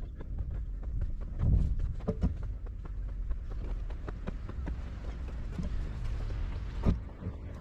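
A mini excavator's diesel engine running with a steady low rumble under irregular clicking and clattering, with heavier knocks about a second and a half in, at about two seconds, and near the end.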